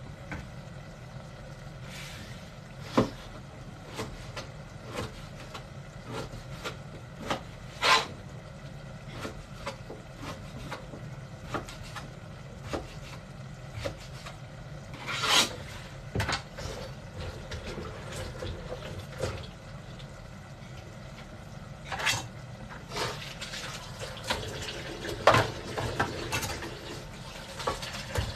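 Kitchen work at a counter: scattered knocks and short clatters of utensils and dishes, a few of them sharp, over a steady low hum.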